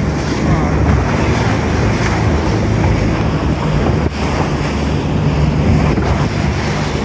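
Wind buffeting the microphone on a moving tour boat, over the steady hum of the boat's engine and water rushing past the hull. The noise is loud and even, with a brief dip about four seconds in.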